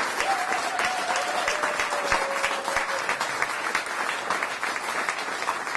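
Audience applauding, with a couple of long held calls over the clapping during the first three seconds.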